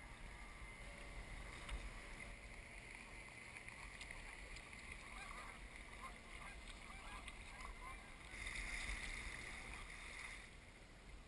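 Kayak paddle dipping and dripping on calm water, with a louder swish of water lasting about two seconds near the end.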